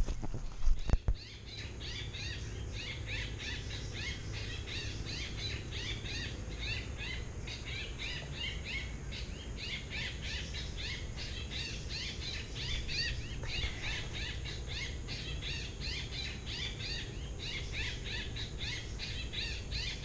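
Many small birds chattering together, a dense run of short, high chirps several a second, over a steady low rumble.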